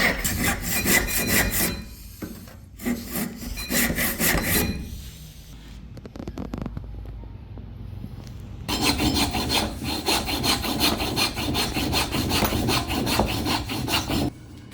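A hand tool scraping back and forth in fast, even strokes, about six a second, in three spells. The longest spell starts about halfway through and is the loudest part.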